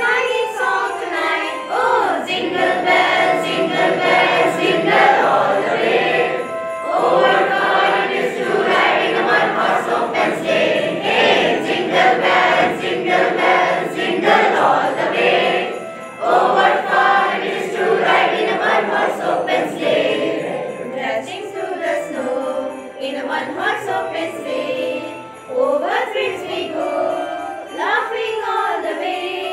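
A Christmas song with singing, playing loudly.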